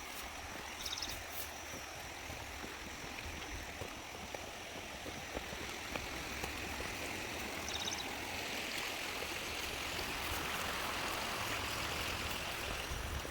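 Running water of a small river or stream, a steady rushing that grows louder over the second half.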